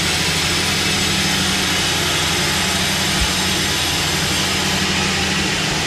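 Sawmill saw running steadily: a low hum under an even hiss, with one short low thump about three seconds in.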